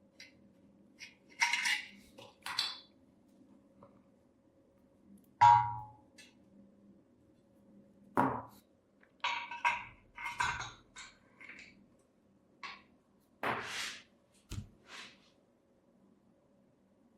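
Metal parts being handled: scattered clinks, knocks and short scrapes, with one louder ringing clink about five and a half seconds in, over a faint steady hum.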